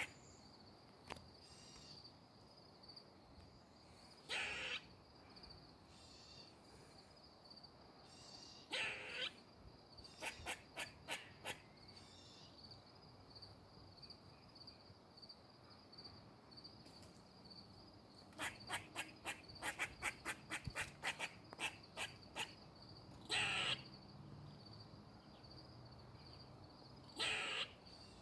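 Squirrel alarm calling in a tree: runs of short, sharp barks, several a second, broken by four longer, harsh drawn-out calls of about half a second each.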